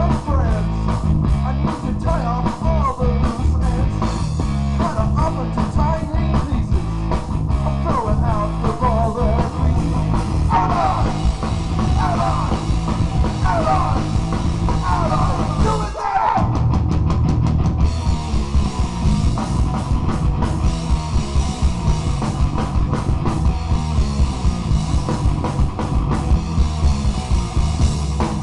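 Live punk rock band playing loudly: distorted electric guitars, bass and a drum kit. A lead guitar plays bending melodic lines over the first half. The low end drops out for a moment just past halfway, then the full band comes back in with fast drumming.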